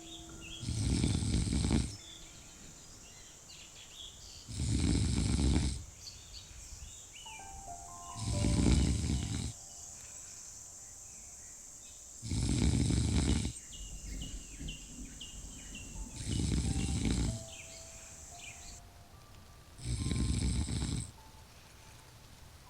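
A person snoring in a slow, regular rhythm: six snores, each about a second long, roughly every four seconds.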